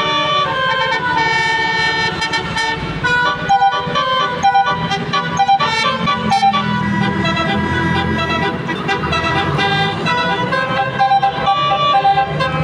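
Telolet basuri musical bus horn playing a quick melody of changing notes, over a bus engine running.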